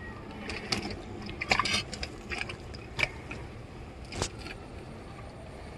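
Close handling noises: a handful of short clicks and rustles, a cluster between one and two seconds in and single ones near three and four seconds in, as a cloth fish bag and its cord are handled and a spinning rod is picked up.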